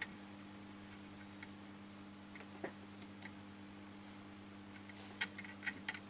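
Faint scattered ticks and small crackles of flux spitting under a soldering iron as it reflows a relay's solder joint on a tumble dryer's control board, with a few spread out and then a quick cluster about five seconds in, over a steady low hum.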